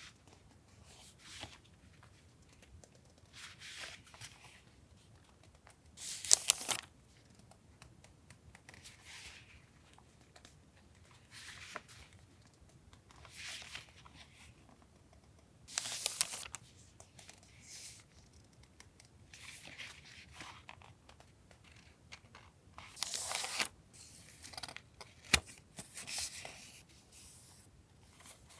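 Paper and packaging being handled: short, separate rustles and crinkles a couple of seconds apart, with a sharp click near the end.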